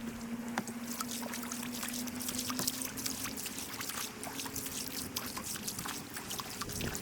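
Water trickling and splashing in many small, irregular drips.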